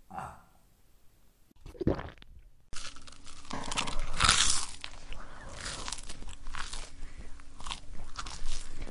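Chewing of crunchy food. The first couple of seconds are quiet, with two single mouth sounds. About three seconds in, dense, irregular crunching begins and runs on, loudest about four seconds in.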